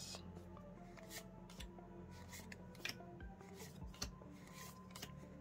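Magic: The Gathering trading cards being slid off a hand-held deck one at a time and dropped onto a pile: soft, irregular snaps and rubs of card stock, about one or two a second.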